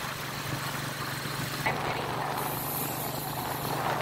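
Engine of the vehicle being ridden, running with a steady low hum under road and wind noise, with one short knock a little before halfway.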